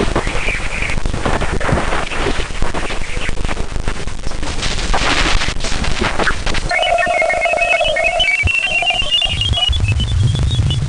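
Jupiter 'space sound', radio emissions converted to audio: dense crackling static, then from about seven seconds in a string of short electronic beeps climbing steadily in pitch over a held mid tone, with a low hum joining near the end.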